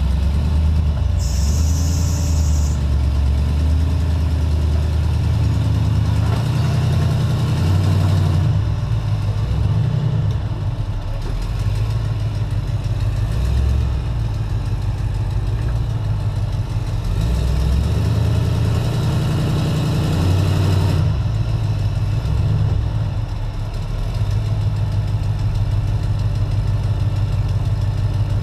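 The 1953 Willys high hood's 383 stroker V8 running at low revs while the Jeep crawls over boulders, the engine note rising and easing every few seconds as the throttle is worked.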